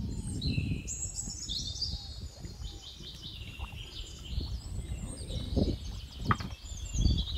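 Several birds chirping and singing in quick, overlapping high-pitched phrases, over a low, uneven background noise.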